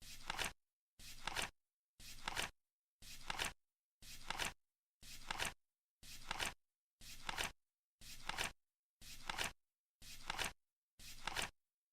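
Flip clock's card flipping once a second: a short rustling clack repeated at an even one-per-second beat, each one building to a sharper snap as it ends.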